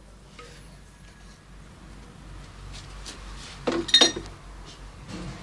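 Two quick clinks with a short bright ring, about four seconds in: a hard object knocking against the earthenware cooking pot.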